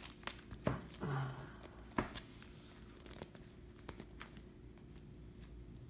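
Plastic pocket pages of a trading-card binder rustling and crinkling as a page is handled and turned, with a few soft ticks and a brief rustle about a second in.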